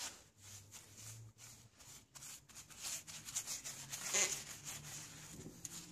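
A car tyre being worked by hand onto a steel wheel rim: rubber rubbing and scraping, with scattered clicks and knocks.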